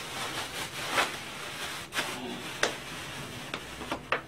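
Thin plastic bags rustling and crinkling as they are handled and pulled open, with a few sharp crackles.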